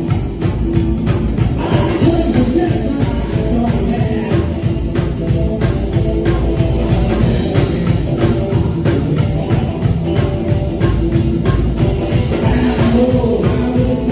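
A rockabilly trio playing live: upright double bass, electric guitar and drums, with a steady driving beat.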